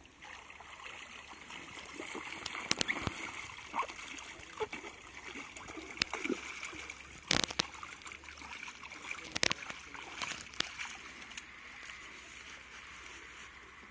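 Lake water splashing and sloshing as a lifeguard wades through the shallows, towing a casualty on a rescue tube to the shore, with a few sharp knocks along the way.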